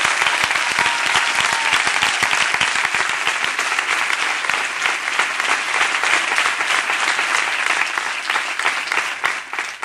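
A large audience applauding, with dense, steady clapping that dies down slightly near the end.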